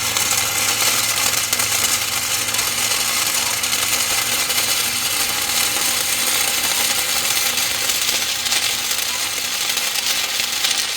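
MIG welder (Lincoln Electric MIG-Pak 180) laying a continuous bead: the wire-fed arc crackles steadily and without a break.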